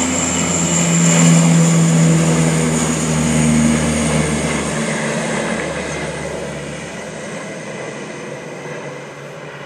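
Twin-engine amphibious water bomber at full power as it skims the river scooping water and lifts off, its propeller drone loudest about a second in and then fading steadily as it flies away.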